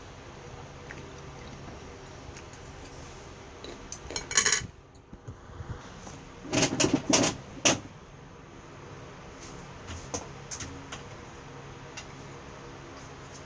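Eating utensils clinking and clattering against dishes: a short clatter about four seconds in, then a louder run of clatters a couple of seconds later, with a few light ticks after, over a low steady background hum.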